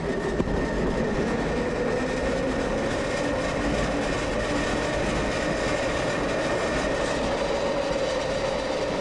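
Pulley wheels of a doli, a river-crossing cable-car cage, running along its overhead steel cable: a steady rolling rumble with a thin whine held at a constant pitch.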